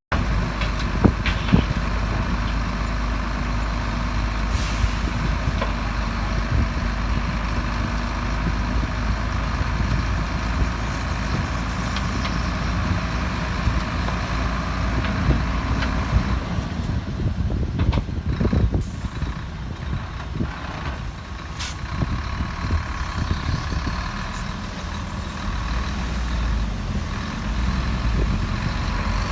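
Heavy diesel construction machinery (dump trucks and a bulldozer) running steadily with a low rumble and scattered knocks, and two brief hisses a few seconds apart in the second half.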